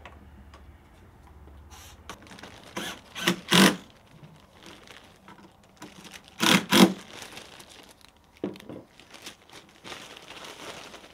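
A handheld cordless power driver running a screw into a plastic switch bracket: two short runs about three seconds apart, each in two quick pulses, with light handling clicks and rustling between.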